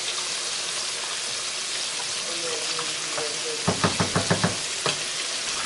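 Chicken thighs frying in oil in a skillet, a steady sizzle. About four seconds in, a wooden spoon is knocked against the rim of the sauce pot about seven times in quick succession, then once more.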